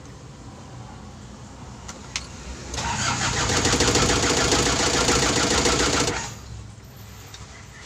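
Isuzu Panther's glow-plug diesel engine cranked by its starter motor for about three seconds, in a fast rhythmic churn that stops abruptly, after a single click about two seconds in. It is being started so the brake booster gets vacuum.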